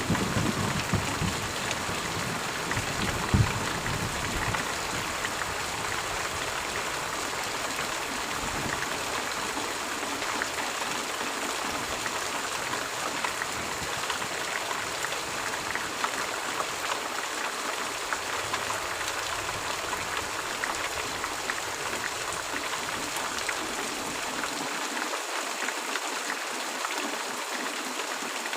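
Steady, even hiss of rain falling. In the first few seconds a low rumble of thunder dies away, with one louder knock about three and a half seconds in.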